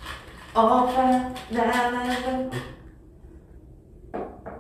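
A voice singing two long, level notes in a row, each held about a second, then two short light knocks near the end.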